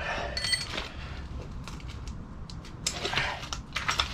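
Metal hand tools clinking as a larger spanner is picked out of a tool set: scattered light metallic clicks, with a short ringing clink about half a second in and a cluster of clicks near the end.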